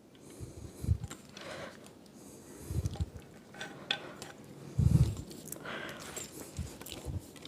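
Metal parts of a C-stand base being unscrewed and handled: scattered light clinks and rubbing with a few dull knocks, the loudest about five seconds in.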